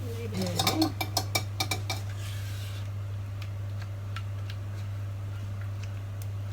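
A utensil clicking and scraping against a dish while spreading a thick cream layer level: a quick run of taps in the first two seconds, a brief scrape, then scattered lighter clicks, over a steady low hum.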